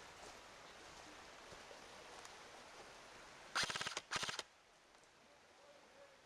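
Two short bursts of rapid fire from an airsoft rifle, each a quick run of even cracks lasting under half a second, a little over three and a half seconds in.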